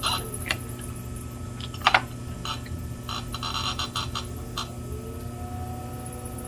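Potter's wheel motor humming steadily while clay is worked, with scattered light clicks and taps from hands and a tool, the sharpest about two seconds in.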